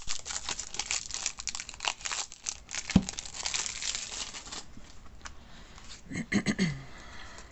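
Plastic shrink wrap crinkling as it is pulled off and crumpled from a new deck of tarot cards, with one knock about three seconds in. The crinkling stops after about four and a half seconds.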